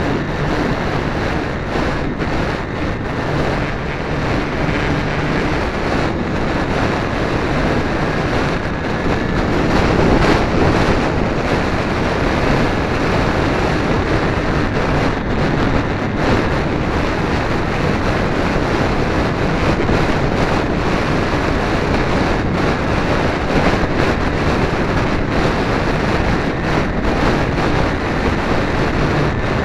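Steady, loud rush of air buffeting a small onboard camera's microphone, with a faint high steady whine.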